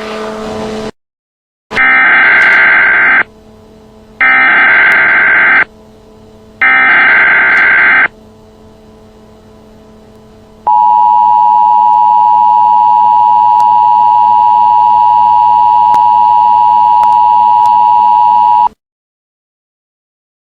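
Emergency Alert System header for a tornado warning: three loud bursts of SAME digital data screech, each about a second and a half long, followed by the steady two-tone EAS attention signal held for about eight seconds before it cuts off.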